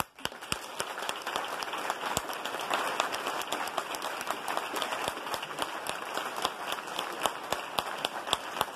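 A crowd of people, robed judges among them, applauding: a steady round of many hands clapping that starts suddenly as the speech ends.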